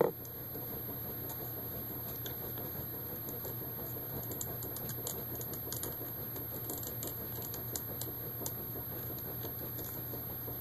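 Faint, irregular small clicks and ticks of hand work with a small screwdriver on a laptop's screen assembly, over a steady background hum.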